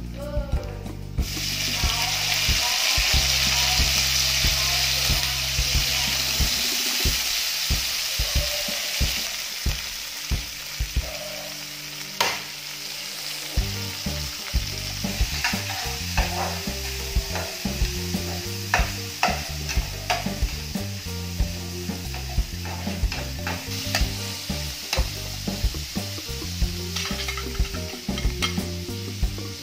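Crickets dropped into hot oil with garlic in a nonstick frying pan: a loud sizzle starts about a second in, then eases into steady frying. A spatula taps and scrapes against the pan as they are stirred.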